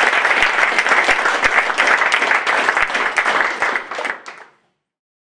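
Audience applauding, many hands clapping densely together; the applause fades out quickly about four seconds in.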